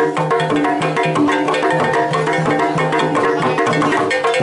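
Traditional Javanese jaranan music: hand drums beating a busy rhythm over steady, ringing tuned percussion.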